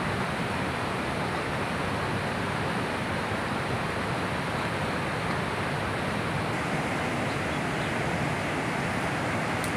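Steady rushing of a river flowing past, an even noise that does not let up.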